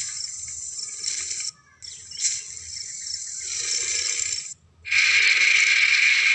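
Designed Carcharodontosaurus creature sound effect: three raspy, hissing growls, separated by short gaps, the third louder and starting about five seconds in.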